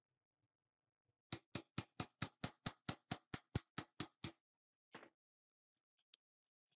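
A hammer tapping the gears and bearings down into an electric chainsaw's gearbox housing: a quick, even run of about fourteen taps, around four a second, then one more tap about a second later.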